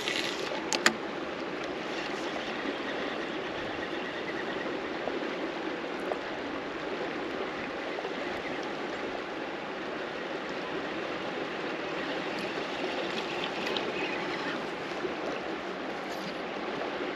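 Steady rush of a river's current flowing over riffles, with one sharp click a little under a second in.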